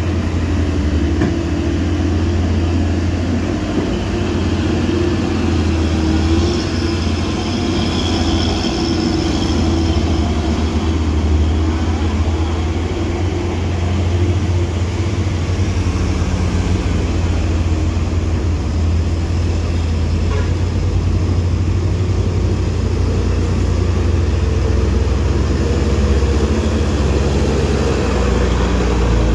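Heavy diesel truck engines running as the trucks creep around a sharp bend, a steady low drone.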